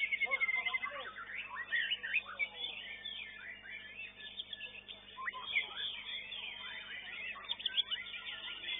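Several caged songbirds singing at once: a dense, continuous tangle of fast whistles, trills and chirps.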